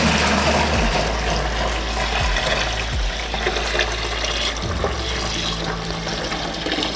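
Water pouring steadily from a tilted plastic bucket into another plastic bucket, as the leafy top layer of water is poured off the sand settled beneath it.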